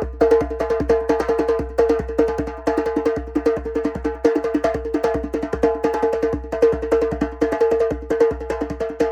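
Music: fast, even percussion strokes over a steady held drone note.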